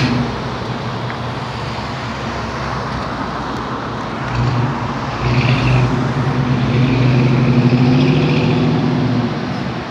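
Steady road traffic on a busy street. From about four seconds in, a vehicle's engine hum grows louder, peaks near eight seconds, then fades as it passes.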